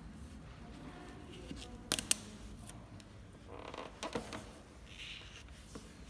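Soft rubbing and rustling of a cotton-gloved finger pressing a vinyl decal and its clear transfer film down onto a motorcycle tank panel, with two sharp clicks about two seconds in.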